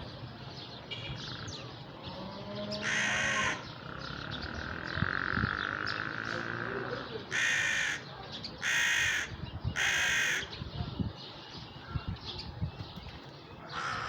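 Crow cawing: four harsh caws, one about three seconds in and three in quick succession later on.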